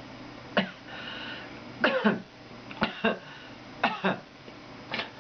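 A man coughing: five short, sharp coughs about a second apart.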